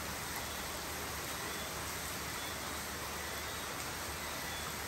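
Steady rain falling, an even continuous hiss with no separate drops or gusts standing out.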